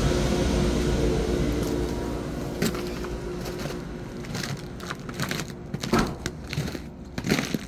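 Steady hum of boiler-room mechanical equipment with a held tone, fading away over the first few seconds, followed by scattered clicks and knocks, a few louder ones near the end.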